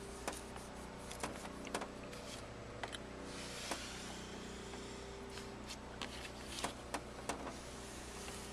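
Scattered sharp clicks and light taps of small objects being handled, over a steady low hum, with a brief rustle about three seconds in.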